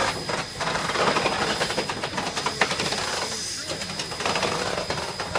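Southern Pacific 745, a 2-8-2 steam locomotive, pulling away slowly: exhaust chuffs from the stack over a steady hiss of steam.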